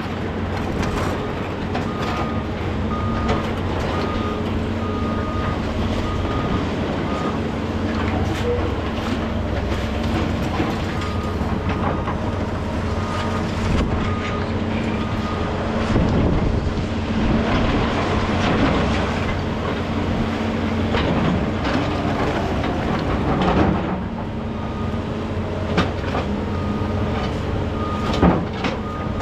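Heavy diesel construction equipment running steadily, with a backup alarm beeping about twice a second in spells near the start, around the middle and near the end, and scattered knocks and clanks of machinery working.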